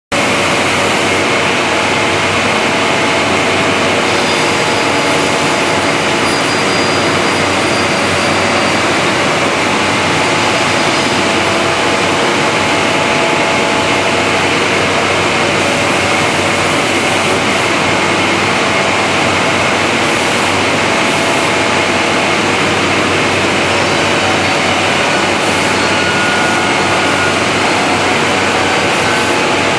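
An SMM101 CNC corner-joint cutting machine running with a loud, steady whirring noise and a few faint steady tones under it, with no change in level.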